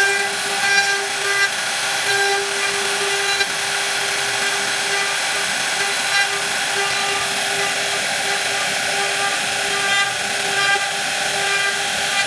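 Electric woodworking power tool running with a steady high whine over a rushing hiss. The whine swells and eases every second or so, as the load on the tool changes.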